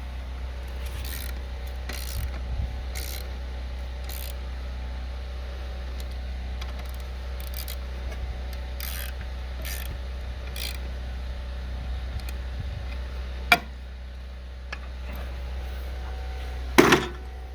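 Hand ratchet with a 14 mm socket clicking in short bursts, about once a second, as the lawnmower's blade bolt is tightened. A sharp knock comes about three-quarters of the way through and a louder knock just before the end, over a steady low hum.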